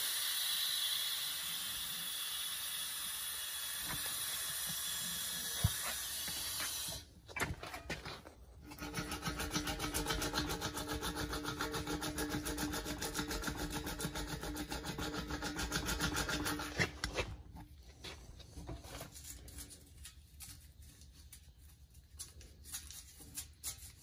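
A small power tool, used to stitch a tire patch down onto the inner liner, runs for about eight seconds in the middle with a steady whine and a fast, even rattle. Before it there is a steady hiss, and after it only faint scattered handling noises.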